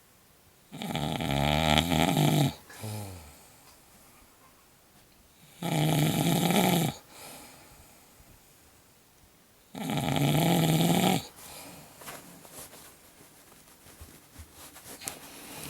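A sleeping woman snoring: three loud snores about four seconds apart, each lasting a second or two, the first with a short snort trailing after it.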